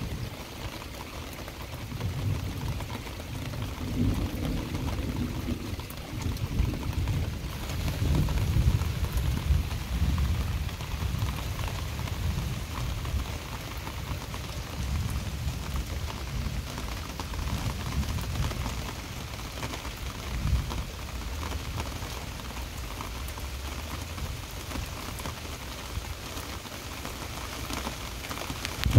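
Heavy rain pouring down in a thunderstorm, with low thunder rumbling through it, strongest in the first half and easing after that.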